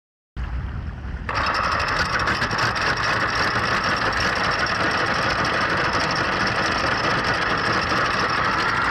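Anchor chain paying out from the bow as the anchor is let down: a steady, rapid rattling run that starts abruptly about a second in.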